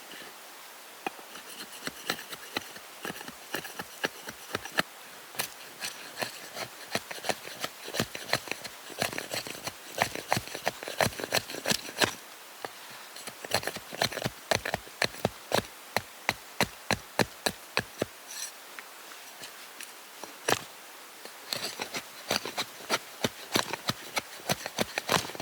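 Knife chopping food on a cutting board: runs of sharp, even knocks at about four a second, broken by short pauses and a few scattered single knocks.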